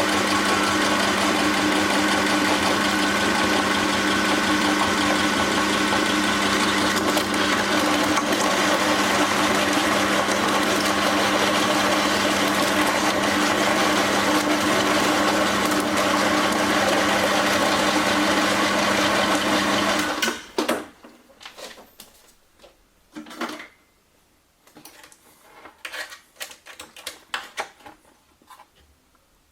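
Electric meat grinder running steadily with a motor hum, grinding ice cream; the motor stops abruptly about twenty seconds in, and scattered short clicks follow.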